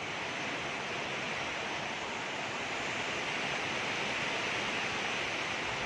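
Pursed-lip breathing: air blown slowly out through rounded lips as a steady hiss that swells gently and then holds.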